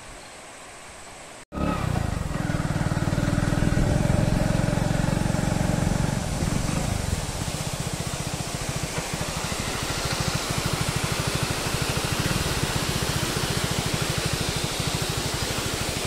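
Motorcycle engine running while riding along a road, with a fast, even pulsing beat. It comes in suddenly about a second and a half in after a quieter stretch, is loudest for the next few seconds, then settles to a steady run.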